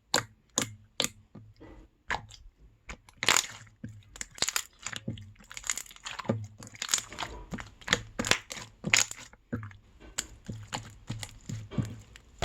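Homemade slime being squished and poked by hand: a rapid, irregular run of sharp pops and crackles.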